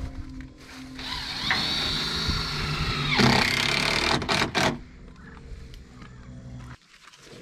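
Loader with pallet forks running, with a loud whine for about two seconds starting a second in, followed by knocks and clatter.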